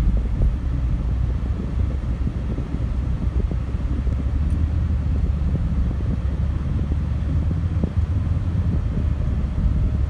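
Car driving, heard from inside the cabin: a steady low rumble of engine and tyres on the road, with light scattered knocks from the road surface.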